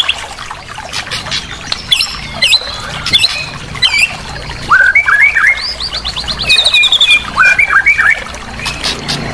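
White-rumped shama (murai batu) singing a varied song: rapid rattling note series, swooping whistles and short repeated slurred chirps, with brief gaps between phrases.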